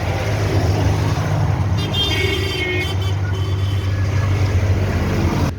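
Diesel engine of a Wirtgen W 100 H cold milling machine running steadily with a low, even hum.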